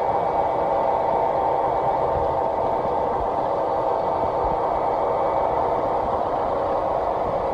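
Model Union Pacific DDA40X diesel locomotive running past with its train: a steady humming run with a light clatter from the track.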